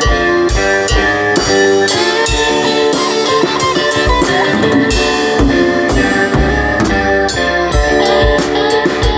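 Drum kit played live with sticks over a recorded song with guitar: kick drum beats and cymbal and drum hits on top of sustained pitched music.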